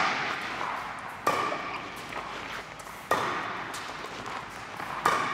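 Badminton rackets hitting a shuttlecock in a rally, three sharp echoing strikes about two seconds apart.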